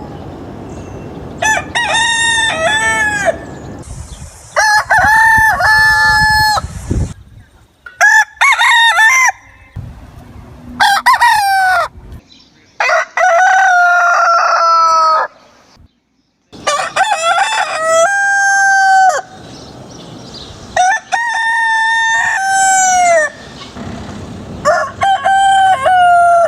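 Roosters crowing one after another, about eight loud cock-a-doodle-doo crows of one to two and a half seconds each. Abrupt changes in the background noise between crows mark separate recordings joined together.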